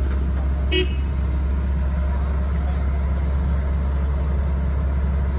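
A Caterpillar hydraulic excavator's diesel engine runs steadily with a low drone while the boom lifts the bucket out of the mud. There is a short, high squeak just under a second in.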